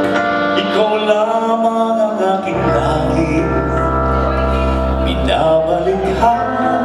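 A live band plays a song with a vocalist singing over it. A deep bass layer comes in about two and a half seconds in and drops out near the end.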